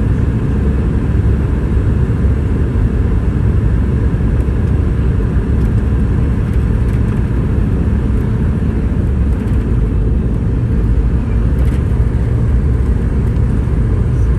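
Steady low rumble of a Boeing 717 airliner's engines and airflow, unchanging throughout, with a couple of faint clicks.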